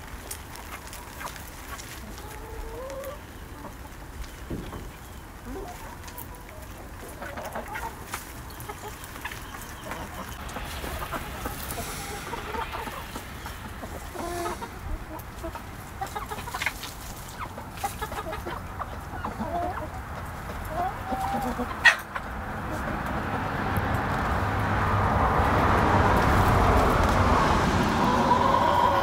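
Backyard laying hens clucking in scattered short calls as they forage. A sharp click comes about two-thirds of the way through, and then a broad noise builds to the loudest part over the last several seconds.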